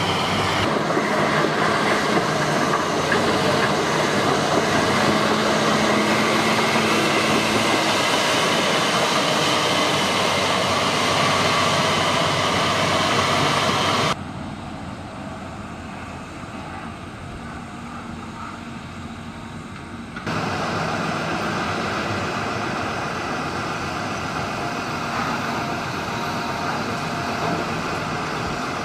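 Heavy diesel earthmoving machinery running steadily: an excavator working and articulated dump trucks being loaded. About 14 seconds in the sound drops abruptly quieter, then jumps back up about six seconds later.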